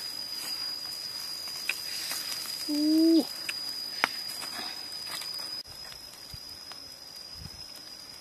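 A steady, high insect trill, with a few sharp clicks and a brief low pitched call about three seconds in. The call rises slightly and then drops away.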